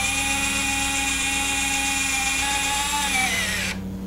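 Electric retract unit of an RC model airplane's main landing gear, its small motor whining steadily as the gear retracts into the wing. The whine drops in pitch and stops about three and a half seconds in as the gear reaches the retracted position.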